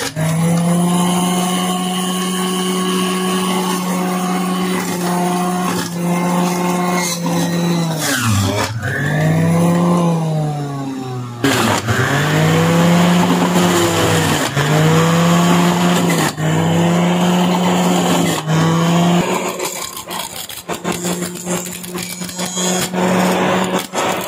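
Electric juicer motor running at high speed, its pitch dipping and recovering again and again as carrots are pressed down the feed chute into the cutter. It runs quieter for the last few seconds.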